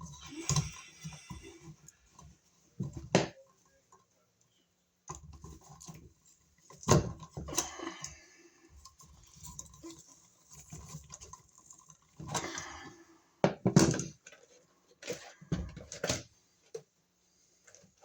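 Small hand tools and wiring being handled: irregular metallic clicks, clinks and knocks with brief scraping, separated by short pauses. The sharpest knocks come about three seconds in, around seven seconds and near fourteen seconds.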